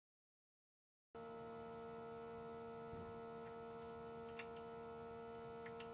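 Dead silence for about the first second, then a faint steady hum of several even tones, with a few faint ticks near the end.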